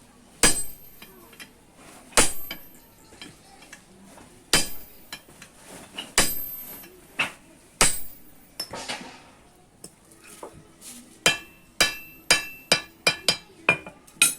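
Blacksmith's hand hammer striking iron, each blow ringing. There are five heavy blows about one and a half seconds apart, then a quicker run of about nine lighter blows near the end.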